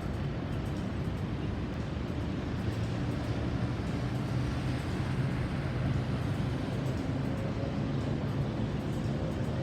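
Steady low rumble of road traffic engines, with no siren sounding.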